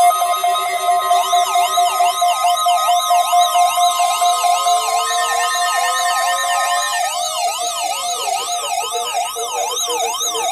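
Several NOAA weather alert radios (Midland WR120s among them) sounding their weekly-test alarms together. A siren-like warble sweeps up and down about two to three times a second, layered over a steady alarm tone and pulsed beeps that stop about seven seconds in. A slower rising wail from another radio comes in midway.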